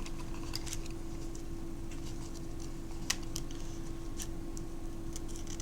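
Scattered light clicks and ticks of small camera parts being handled during disassembly, the sharpest about three seconds in, over a steady hum.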